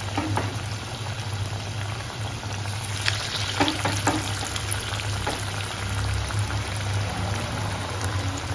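Batter-coated paneer cubes deep-frying in hot oil: a steady sizzle, broken by a few sharp clicks.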